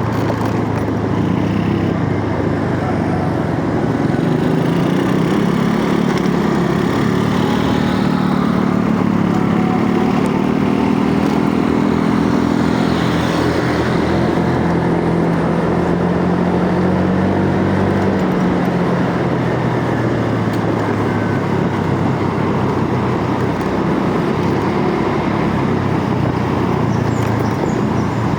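Motorcycle engine running while riding, its pitch rising and falling with speed changes, under steady wind noise.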